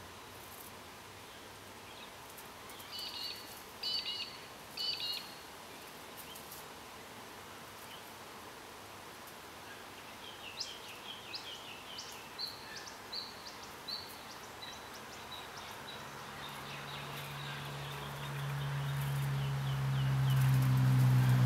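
Wild birds calling: three short two-note calls a few seconds in, then a quick run of chirps around the middle. From about two-thirds of the way through, a low engine drone swells steadily until it is the loudest sound at the end, like an approaching vehicle.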